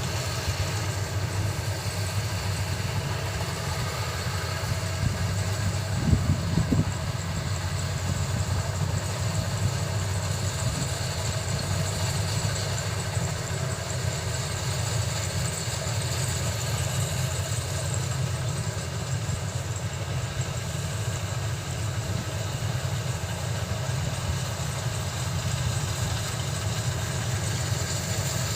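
Combine harvester engine running steadily, with a brief louder surge about six seconds in.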